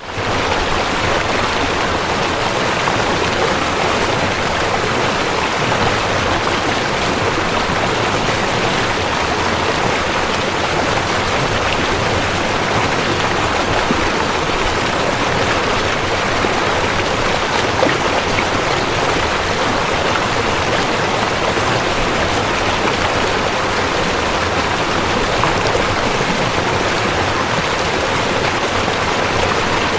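Rushing river water running loud and steady: a continuous, even rush with no breaks.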